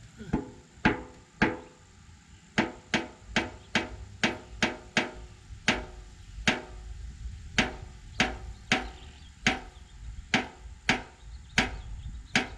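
A sealed steel drum collapsing under atmospheric pressure as the steam inside condenses. Its walls buckle inward in a string of sharp metallic pops and bangs, each with a short ring. They come irregularly, one or two a second, and bunch closer together a few seconds in.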